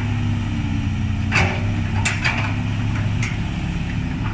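Kobelco SK200 hydraulic excavator's diesel engine running steadily under work, with a few sharp clanks, the loudest about a second and a half and two seconds in.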